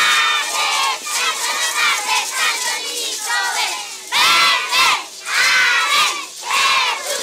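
A crowd of children shouting and cheering together, with several loud shouts in quick succession in the second half.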